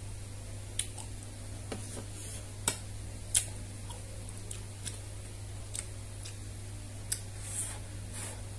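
Chopsticks and a metal spoon clicking against a clay pot of instant noodles while eating: sharp, irregular clicks roughly once a second, over a steady low hum.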